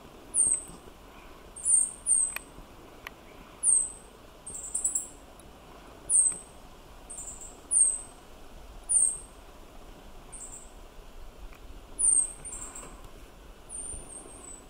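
Meadow bunting calling: short, high, thin notes, each a quick downward slur, repeated about once a second with a few uneven gaps.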